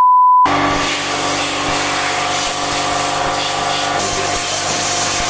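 A brief steady test-tone beep, then a compressed-air blow gun hissing steadily as it blows out a foam air filter, with a faint steady whistle in the hiss.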